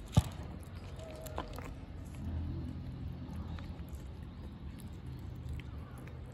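Cats eating from glass dishes, with small scattered crunching clicks of dry kibble being chewed. There is one sharp knock just after the start and a steady low hum underneath that swells about two seconds in.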